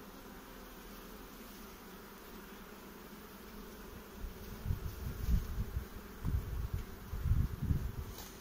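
Honeybees humming steadily on a brood frame held up from an open hive. Irregular low thuds and rumbles come in from about halfway through.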